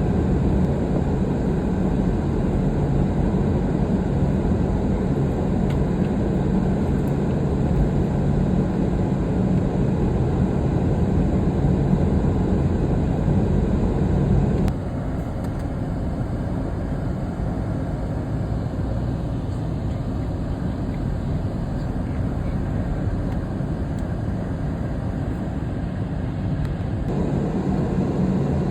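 Steady low rumble of a moving vehicle. It drops suddenly about halfway through and builds again near the end.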